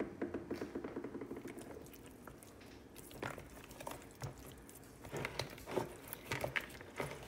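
Hands turning raw chicken wings in a sauce-coated plastic bowl: soft wet squelches and slaps of skin and sauce, coming as scattered short strokes and thickest in the second half.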